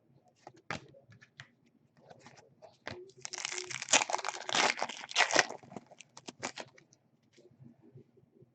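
A trading-card pack's foil wrapper being torn open and crinkled, with a dense crackling stretch of about two seconds near the middle. Scattered short clicks and rustles come before and after it.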